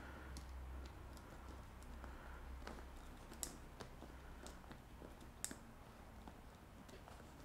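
Faint small plastic clicks from a Wago 221 lever connector as earth wires are pushed in and its levers snapped shut, with two sharper clicks in the second half, over a low steady hum.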